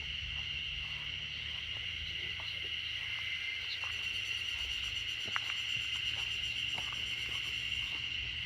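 Insects calling in a steady chorus, a continuous high buzz, with a low rumble underneath.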